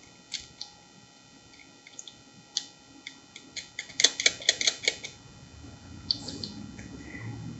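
Hands working battery cables and terminals: scattered light clicks and taps, then a quick run of about eight sharp clicks around four to five seconds in.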